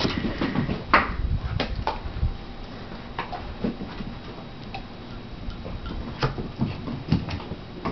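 Irregular light clicks and taps as a small dog chases and bats a cap around the floor, with a low rumbling noise over the first two seconds or so.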